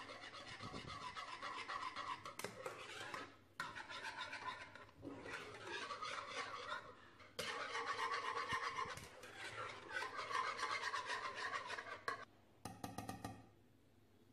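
Wire whisk beating thick custard cream in a metal saucepan, its wires scraping rapidly against the pan in several stretches with brief pauses. The whisking stops about two seconds before the end.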